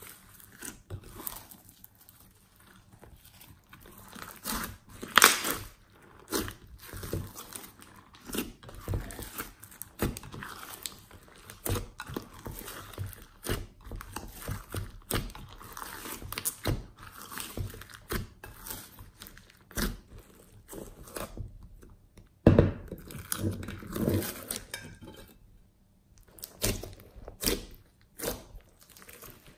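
Hands squeezing and kneading glossy slime mixed with foam beads: irregular wet clicks, pops and crackles, with a sharp pop about five seconds in and another about two-thirds through.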